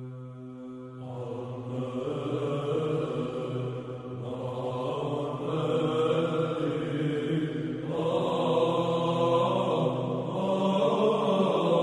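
Byzantine chant: men's voices singing a melody over a steady held drone note (the ison). The voices enter about a second in and go in phrases.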